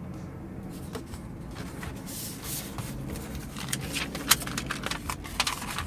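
Paper rustling as model-kit decal sheets and a loose protective paper sheet are handled and slid over one another, with several sharp crackles in the second half.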